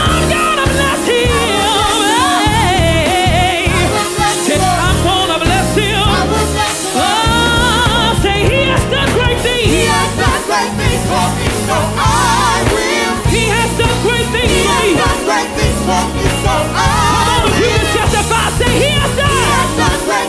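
Gospel praise singing: a small group of singers on microphones, with a lead voice and backing voices, over a steady instrumental accompaniment.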